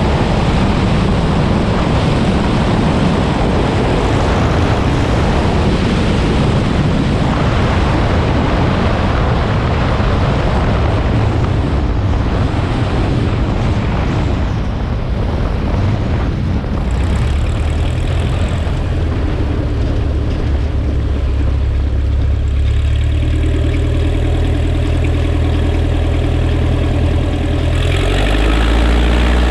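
Piper Pacer's engine and propeller at low power with heavy wind noise through the final approach, touchdown and rollout on a grass strip. The engine settles to a steady idle about two-thirds of the way in, then picks up a little near the end as the plane taxis.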